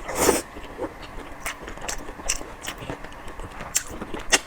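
Close-miked chewing of spicy boneless chicken feet: wet mouth clicks and crunches, irregular and several a second, after a short noisy burst at the start.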